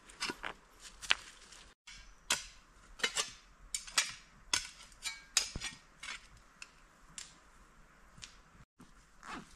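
A series of sharp, irregular knocks and clicks of hard objects striking, about one or two a second, cutting out briefly twice.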